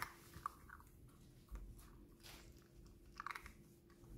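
Small puppy eating dry kibble from a plastic bowl: faint, irregular crunches of chewing.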